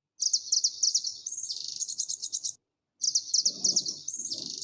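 Songbird singing: rapid, high chirps and trills in two bouts with a brief silent gap between them.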